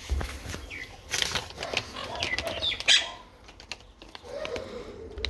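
A foil dog-treat bag crinkling and rustling as it is handled, in quick bursts, loudest about three seconds in, with a few short high chirping tones among them.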